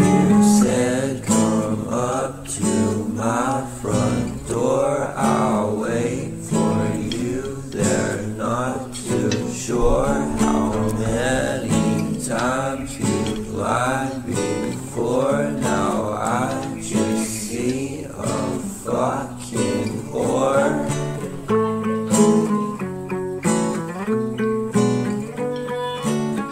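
Background music led by acoustic guitar, plucked and strummed, with a gliding melody line over it for most of its length.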